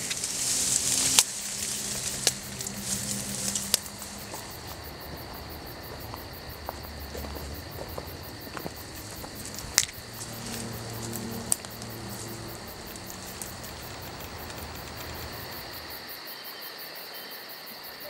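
Crickets chirping in a steady, evenly pulsing high trill, a night forest ambience. The first few seconds also carry a louder rush of noise with a few sharp clicks.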